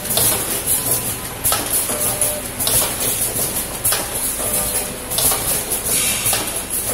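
DXD-50KZ liquid sachet packing machines running. They make a repeating metallic clatter with a burst of hiss a little more than once a second as each packing cycle comes round.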